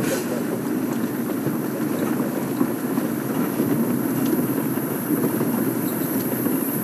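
Game-drive safari vehicle running: a steady engine rumble with light rattles.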